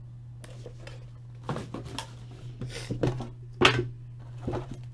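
Hands handling trading-card boxes and packs: a handful of short, scattered clicks and rustles of cardboard and wrapper over a steady low hum.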